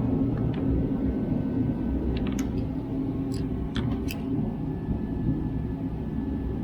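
A steady low mechanical rumble with a constant hum, with a few light sharp clicks and clinks between about two and four seconds in.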